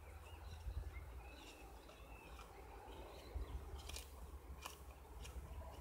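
A Cudeman 148M bushcraft knife's Scandi-ground blade shaving a dry hazel stick into a feather stick, with about four short, sharp scrapes in the second half. Wind rumbles on the microphone and birds chirp faintly.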